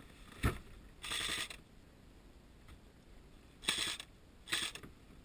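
Airsoft electric rifle firing three short full-auto bursts, each a rapid chatter of the gearbox cycling, the first about half a second long and two shorter ones near the end. They come after a single sharp knock about half a second in.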